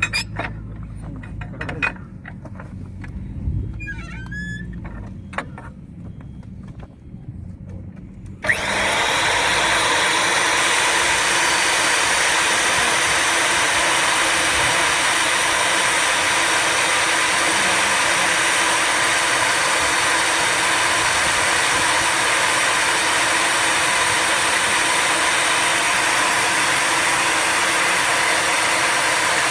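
A low hum with scattered clicks and knocks, then about eight seconds in a motor on the hydraulic HDPE butt fusion welding machine starts abruptly and runs steadily.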